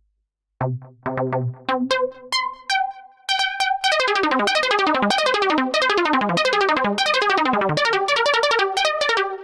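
Electronic keyboard-synthesizer music. Single notes come in sparsely over a low bass note, then turn into fast, repeated falling runs of notes that stop sharply near the end.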